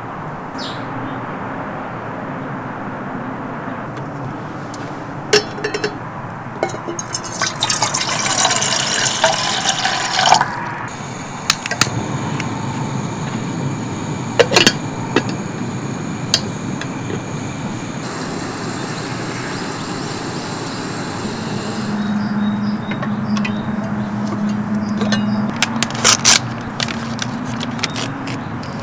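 Water pouring into an aluminium camp kettle, then metal clinks as its lid is handled on the gas burner; near the end, crinkling clicks as a paper drip-coffee bag is torn open.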